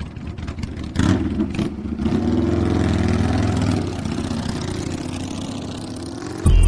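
Custom chopper's Buell V-twin revving up as the motorcycle pulls away about a second in, rising in pitch for a few seconds, then running more steadily and quieter. Music comes in near the end.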